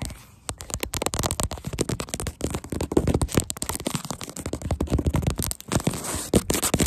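Fingertips tapping and rubbing fast and unevenly right on the recording phone. It makes a dense run of muffled thumps and crackles, many per second.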